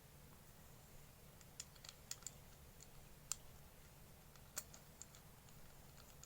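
Near silence with faint, irregular light clicks and ticks, a dozen or so, two of them a little sharper around the middle.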